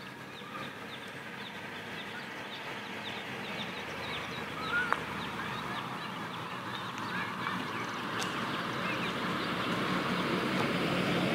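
Many birds chirping in quick, overlapping short calls, with traffic noise growing gradually louder as a vehicle approaches; a single sharp click about five seconds in.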